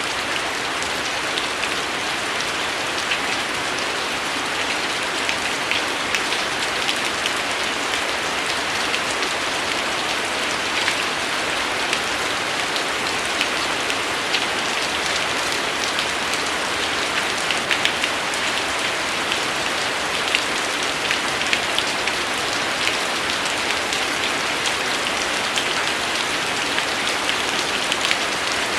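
Steady rain falling on a surface: a dense, even hiss with many small, sharp drop hits scattered through it.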